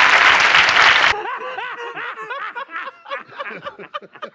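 Audience applause that cuts off abruptly about a second in, followed by a person chuckling in a run of short rising-and-falling laughs that fade toward the end.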